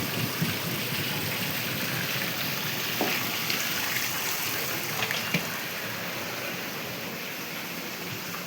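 Steady hissing background noise with a few faint clicks or knocks.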